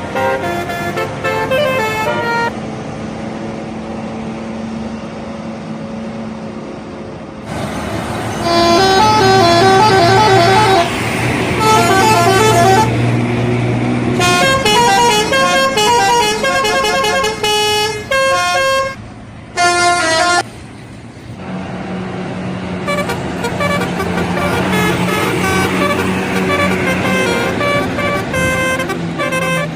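Indonesian bus telolet horn playing quick tunes of short, stepped notes, with a bus engine running underneath. The tunes are loudest through the middle stretch, with a brief drop near two-thirds of the way, and the horn is quieter over the engine at the start and end.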